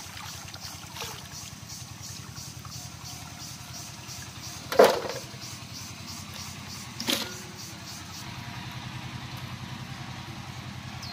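Hands sloshing sliced potatoes in a large pot of water, with two sharp splashes about five and seven seconds in, the first the loudest. An engine runs steadily in the background.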